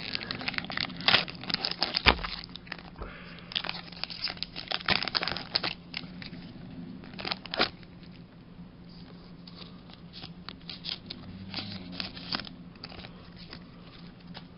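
Pokémon TCG booster pack's foil wrapper being torn open and crinkled in the hands: a run of sharp crackles, busiest over the first half, then scattered crinkles.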